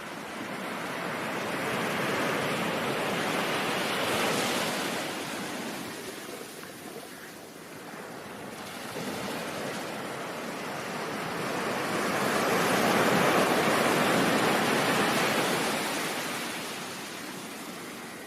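Ocean surf: waves washing in as a steady rush of noise, swelling and ebbing slowly, with two waves cresting in turn.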